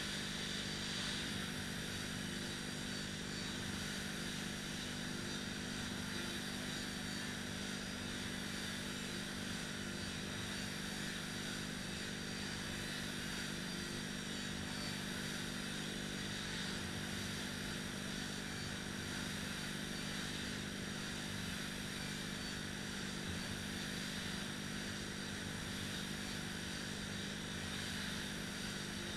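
Two air-resistance rowing machines in use, their fan flywheels making a steady whirring whoosh.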